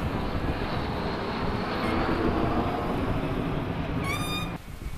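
Avro Vulcan bomber's four Olympus turbojets running during a low pass: a steady, dense jet roar. Near the end a short rising whine rises above it, and then the sound drops away suddenly.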